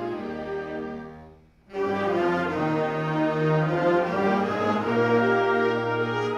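High school concert band playing. The music thins out and dies away to a brief pause about a second and a half in, then the full band comes back in, louder than before the pause.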